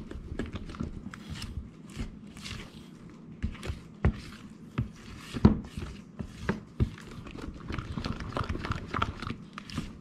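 A spatula stirring and folding thick carrot cake batter in a plastic mixing bowl: wet squelching and scraping with irregular knocks of the spatula against the bowl, the loudest about halfway through.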